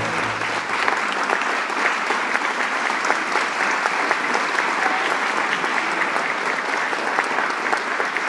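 A large crowd applauding steadily, many hands clapping at once, as the dance music ends; the last low notes of the music die away in the first second.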